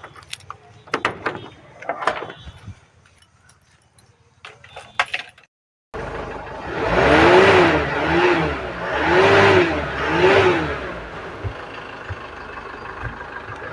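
A vehicle engine, likely the ambulance's, starts up abruptly and is revved four times in quick blips, its pitch rising and falling with each, then settles to a steady idle. Before it starts there are a few light clicks and knocks.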